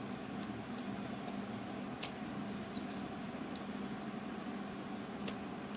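A steady low background hum, with four light clicks as a cardboard phone box is handled and turned in the hands.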